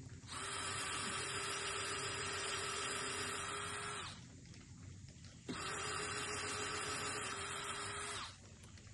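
Handheld power drill running at a steady speed into the wooden barn post, in two long runs of about four and three seconds with a short pause between.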